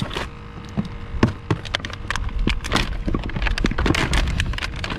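Frozen plastic water bottles and ice being pushed around inside a plastic cooler: a run of irregular crinkling crackles and knocks.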